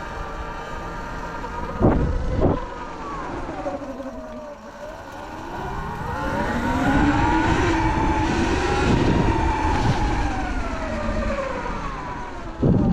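Sur-Ron electric dirt bike's motor and belt drive whining while riding, the pitch falling, rising as it speeds up from about five seconds in, then falling again. A couple of heavy thumps about two seconds in and another near the end.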